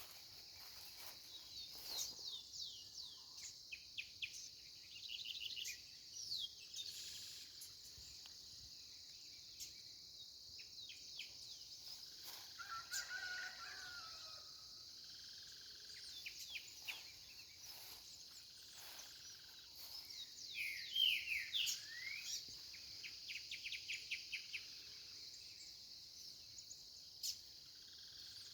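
Small birds chirping and singing in quick runs of falling notes over a steady high buzz of insects. A rooster crows about midway.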